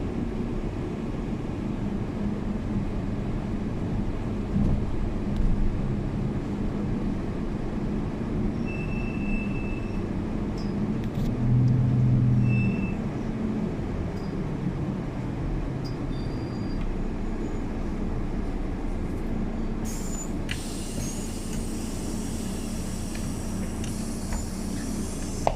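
Interior of a city bus under way: steady engine and drivetrain hum with road rumble, the hum swelling briefly about halfway. Two short high beeps sound in the middle, and about three quarters through a steady hiss of compressed air starts.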